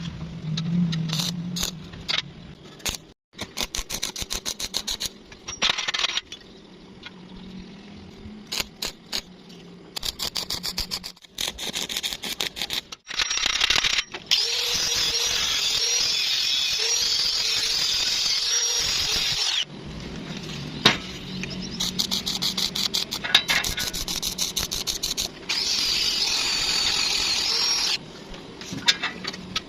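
Arc welding on a door hinge in several separate bursts: rapid crackling runs and two longer, steady sizzling passes, with short pauses between.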